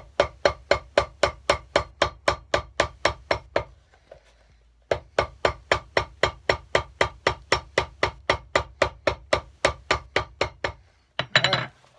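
Cobbler's hammer striking a leather shoe sole on a last in quick, even blows, about four a second, in two runs with a pause of about a second between them: the sliced sole channel being hammered flat to close over the blind stitching.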